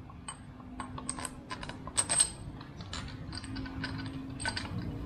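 Small steel parts and hardware of a motorcycle crash guard clinking and clicking as they are handled, a string of separate sharp clicks with a louder ringing clink about two seconds in.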